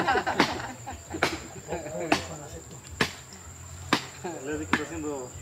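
Six sharp chopping blows, about one a second, over a steady high insect trill and low voices.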